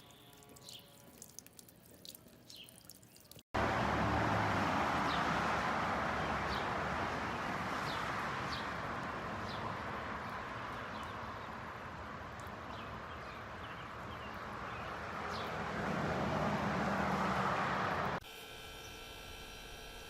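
Small solar-powered fountain pump spraying water that splashes steadily into a bird bath, starting abruptly a few seconds in and stopping abruptly near the end. A few short high chirps come before and over it.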